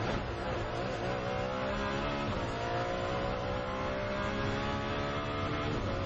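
Ferrari 599XX's V12 engine under hard acceleration, heard from inside the car: the pitch climbs, drops once about two seconds in at an upshift, then climbs again.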